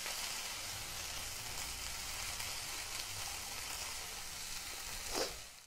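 Chopped onions and tomatoes sizzling steadily in hot oil in a non-stick frying pan as they are stirred with a silicone spatula, being sautéed until the tomatoes soften. The sizzle stops abruptly near the end.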